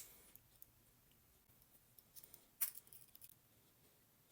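Faint metal clicks from a brand-new Victorinox Huntsman Swiss Army knife as its stiff tools are worked out of the handle: a sharp click at the start, then another about two and a half seconds in, followed by a few softer clicks.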